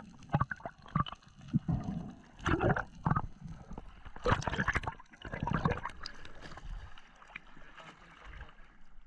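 Seawater splashing and sloshing at the surface beside an inflatable boat's hull as the microphone dips in and out of the water, in irregular surges for about six seconds, then calmer.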